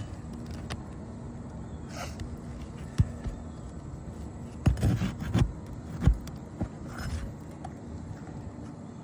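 Tool and handling noise from work on an asphalt shingle roof: a few sharp knocks and thumps, loudest in a cluster about halfway through, over a steady low rumble.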